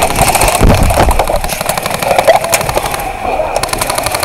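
Airsoft electric guns firing full-auto bursts: a fast, even rattle over a steady motor whine, with a dull knock about half a second in.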